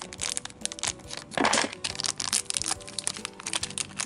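A Splashlings blind bag's wrapper crinkling and crackling as it is handled and torn open, with a denser rip about a second and a half in, over background music.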